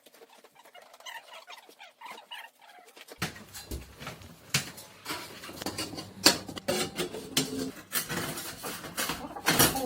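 Irregular knocks and metallic clanks of stovepipe being handled and fitted, starting about three seconds in.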